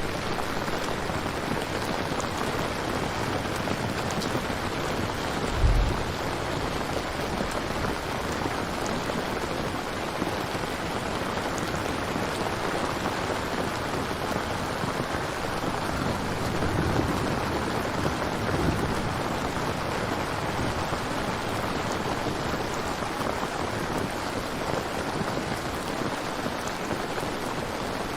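Steady falling rain, an even patter and hiss, with a short low thump about six seconds in and a soft low rumble a little past halfway.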